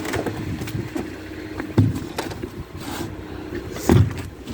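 Farm machinery motor running steadily, with a few heavy low thumps about two seconds in and near the end.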